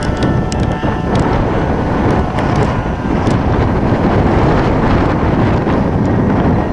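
Strong wind buffeting the microphone, a loud steady rumble. A model airplane's engine note is heard faintly at first and fades out about a second in.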